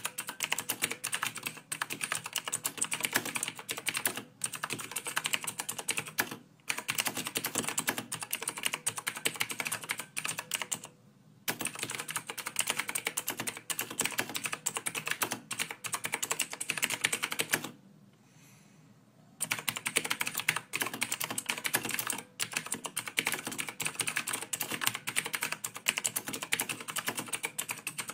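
Fast, continuous typing on a computer keyboard: a dense run of key clicks that breaks off briefly about eleven seconds in and again for a second or two about two-thirds of the way through.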